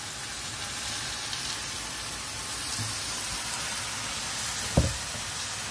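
Fish cakes and sliced onions sizzling steadily in a hot frying pan as they are stir-fried, with a single thump near the end.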